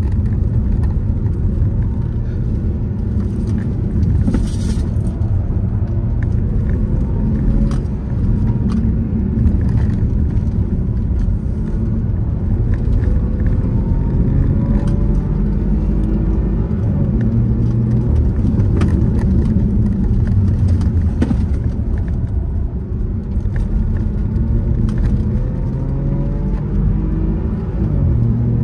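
Car engine running at speed, its pitch rising several times as it revs up and dropping near the end, under a heavy, steady low rumble.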